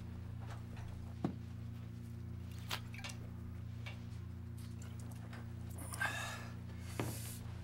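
A man drinking from a whiskey bottle: a few small knocks, a short breathy rush about six seconds in, and a thump near the end, over a steady low drone.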